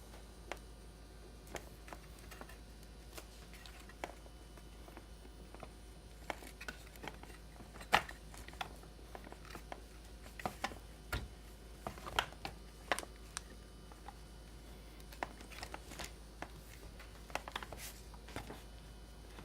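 Scattered light clicks and taps from hands working small parts inside a Stihl MS270 chainsaw, over a steady low hum.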